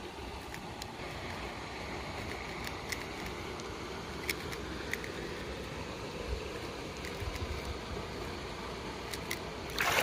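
Steady rush of flowing river water, with a few faint clicks. Near the end, a loud splash as a person lifts his head up out of the water.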